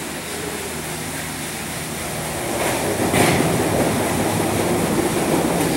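Water wheel and the piston-rod machinery it drives, running with a steady rumble of water and moving parts. The rumble grows louder about two and a half seconds in, with a knock about three seconds in.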